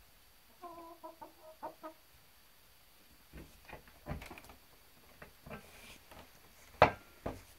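Chickens clucking: a quick run of short clucks about a second in, followed by scattered sharp taps and a loud knock near the end.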